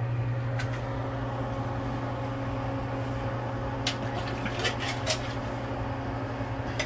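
A steady low electrical hum, with a few light metal clinks from about four seconds in as a can of coconut milk is tipped and scraped out into a cooking pot.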